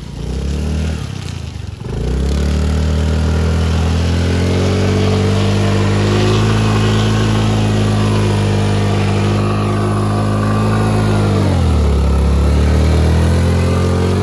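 Honda Activa scooter engine revved hard and held at high revs, straining to drive the scooter out of deep mud. The revs climb and settle about two seconds in, sag briefly near the end and climb back.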